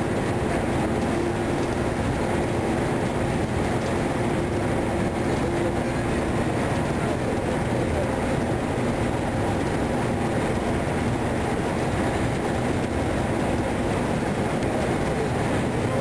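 Steady rumble of a ship's engines and deck machinery running, with a faint hum over it.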